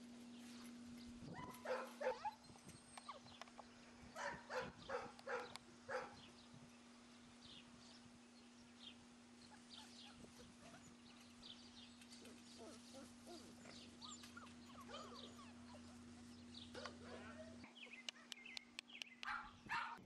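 Six-week-old Labrador retriever puppies yipping and whining in short bursts as they tussle over a toy: about two seconds in, again around four to six seconds, and near the end, over a faint steady hum.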